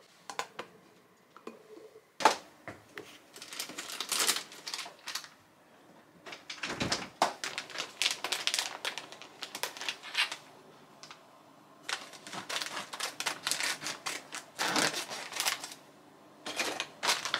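Plastic bag of dried fried tofu (Matsuyama-age) crinkling as it is handled, in bursts of crisp crackling. A single sharp knock comes about two seconds in.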